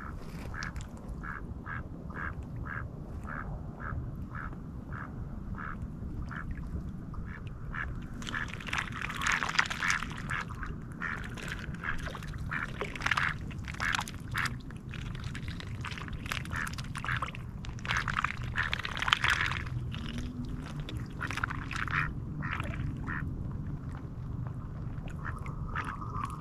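Mallard ducks quacking: a run of short, evenly spaced soft quacks for the first several seconds, then louder, busier bursts of quacking and chatter through the middle, thinning out near the end.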